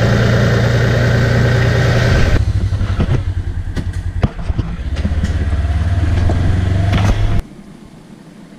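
Engine of heavy logging equipment running. About two and a half seconds in it changes to a lower, pulsing run with some clatter, then it ends abruptly about seven and a half seconds in.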